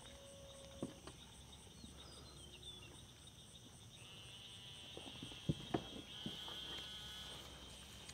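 Steady chorus of insects with a faint high pulsing trill above it. A few sharp clicks and knocks stand out, the loudest pair about five and a half seconds in.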